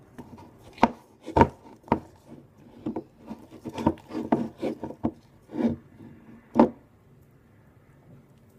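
A mixing tool stirring thickening slime in a bowl, knocking and scraping against the bowl's sides in an irregular run of strokes, with four sharper loud knocks. The slime is forming as the contact-solution activator takes. The strokes stop about two seconds before the end.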